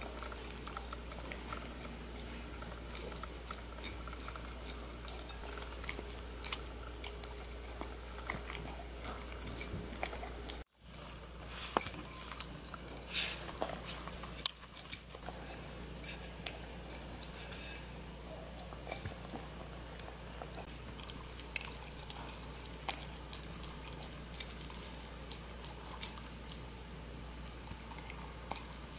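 Bedlington terrier eating a soft dog cake, chewing and biting with irregular small clicks and smacks, several a second. The sound drops out for a moment about eleven seconds in.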